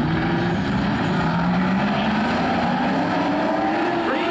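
A pack of pro stock race cars' engines running hard together, the engine note rising as the cars accelerate through the turn, with a rising sweep near the end as the field draws closer.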